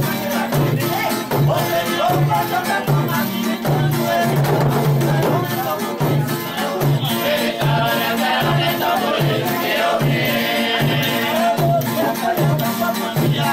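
Folia group music: men singing together over hand-held frame drums and rattles, with a steady drumbeat.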